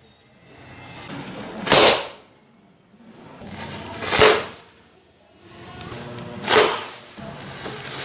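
Paper cannon fired on a match-head charge, shooting a compressed aluminium-foil ball. Three shots come about two and a half seconds apart, each a short bang preceded by a hiss that builds for about a second. A fourth shot begins right at the end.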